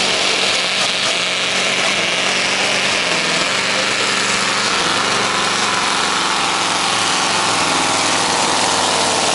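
Scania pulling truck's diesel engine running flat out under heavy load as it drags a truck-pulling sled down the track, a loud, steady, unbroken engine sound.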